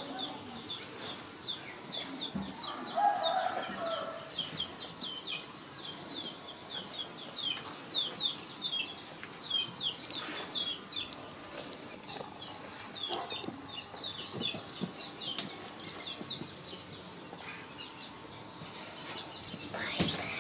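Chicks peeping: a rapid run of short, high chirps, several a second, with a lower call about three seconds in and a sharp knock near the end.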